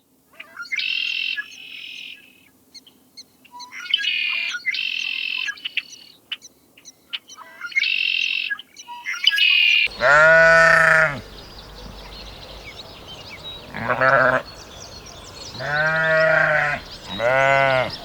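High-pitched chirping calls in three short bouts, then, after a cut, four drawn-out bleats from sheep or goats, each lasting up to about a second.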